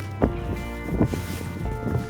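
Instrumental background music with held notes and a few sharp note attacks.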